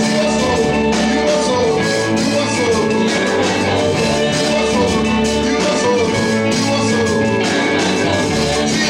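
Music with singing and a steady drum beat, in an upbeat style.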